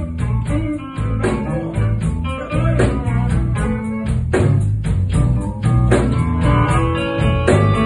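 Blues band playing live, led by a semi-hollow-body electric guitar playing a run of single-note lines with string bends over a low bass-and-drum groove.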